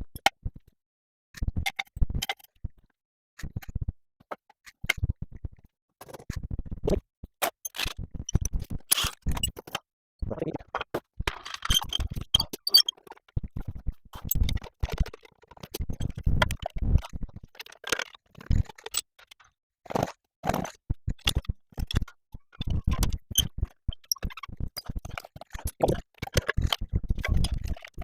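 Workshop work on metal car parts: irregular clanks, clicks and scrapes of tools and components, in short stop-start bursts.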